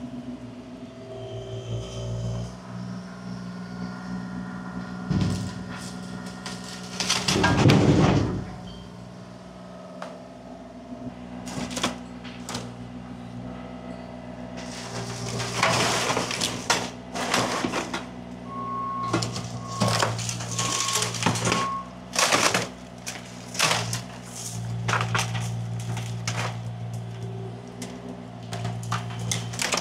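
A machine's engine running steadily while wood cracks, splinters and crashes in repeated loud bursts, as of a wooden shed being broken down. Four short beeps sound just past the middle.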